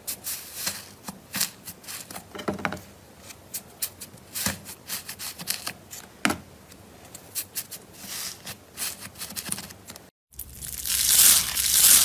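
Slime being handled, pressed and poked: a run of sharp crackling clicks and crinkles. After a short break about ten seconds in, a louder, denser stretch of crackling.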